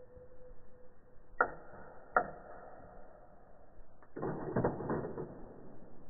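Two sharp clicks, each followed by a short ringing tone, then a quick cluster of clicks and rattles about four seconds in.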